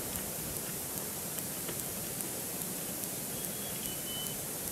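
Steady hiss of open-air ambience on an outdoor nest-cam microphone, with faint scattered ticks. A thin high whistle holds for about a second, a little over three seconds in, and drops slightly in pitch partway through.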